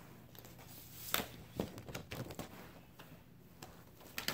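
Handling noise from paper and cardboard: several short rustles and taps as a download-code card is pulled from a vinyl record's sleeve. The loudest comes a little over a second in.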